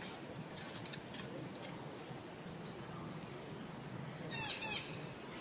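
Steady outdoor background hum with two short, high-pitched animal calls in quick succession near the end, and a few faint chirps before them.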